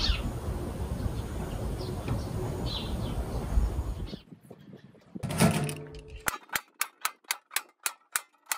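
Outdoor background noise with a few short bird chirps, then, after a cut, a screwdriver driving screws into a stainless steel pan. In the last couple of seconds the screwdriver clicks evenly, about four times a second.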